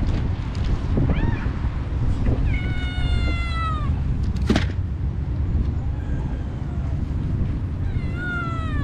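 Stray cats meowing a few times while they crowd around to be fed, including one long meow falling in pitch about three seconds in. A single sharp click comes about halfway through, over a steady low background noise.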